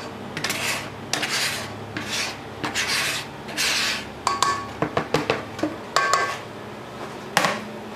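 Powdered sugar being scraped and poured from a plastic bowl into a stainless-steel stand-mixer bowl: a run of rasping scraping strokes, with several sharp clinks of the scraper against the steel bowl in the second half.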